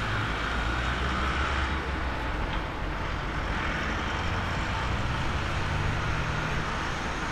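Jet airliner engine noise: a steady, deep rumble with a hiss over it.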